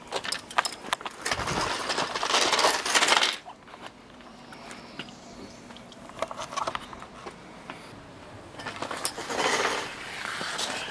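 Metal clinks and rattles from rusty bicycles being handled and moved by hand, with two louder stretches of noise, one about two seconds in and one about nine seconds in.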